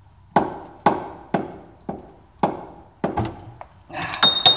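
Repeated sharp metal-on-metal knocks, about two a second, striking the vise grips clamped on a classic Mini's upper control arm pivot bolt to drive the bolt out rearwards. Near the end the blows come quicker and close with a brief metallic ring.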